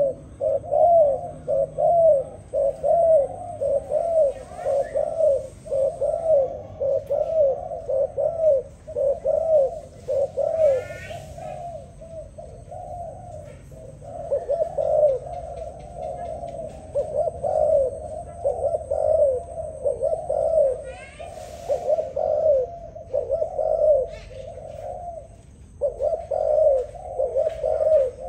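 Spotted dove cooing: a long run of low repeated coos, nearly two a second, broken by short pauses about halfway through and near the end.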